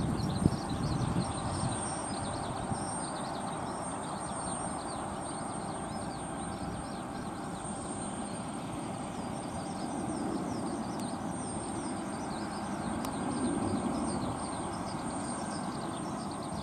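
Jet airliner climbing out after takeoff: a steady distant rumble from an FDA Embraer E-Jet's turbofan engines that swells slightly late on, with birds chirping. A brief bump sounds about half a second in.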